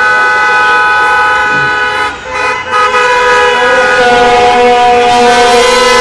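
Several vehicle horns sounding at once, held long and overlapping in different pitches, with a brief break a little over two seconds in: celebratory honking after a football victory.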